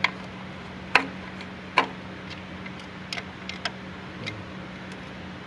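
A few sharp light clicks and taps, two louder ones about a second and nearly two seconds in, over a steady low hum.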